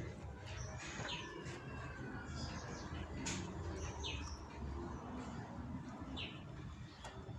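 Birds chirping now and then, short high calls a second or more apart, over a low steady hum.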